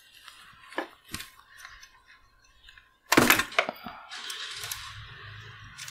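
Handling of bare NAS hardware: a few light clicks, then a loud clatter of sharp knocks about three seconds in, followed by rustling and a low hum.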